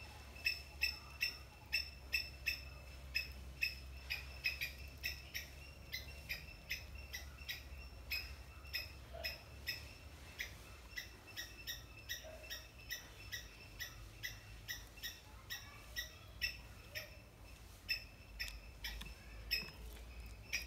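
Three-striped palm squirrel giving its chip call: a long, even series of short high chirps, about two to three a second, kept up without a break.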